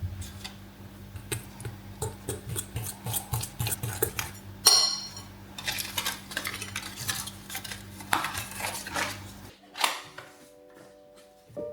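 Metal utensils clinking and scraping against dishes in quick, uneven strokes while banana muffins are being prepared, with one loud bright ringing clink about halfway. Near the end the kitchen sounds stop and soft music notes begin.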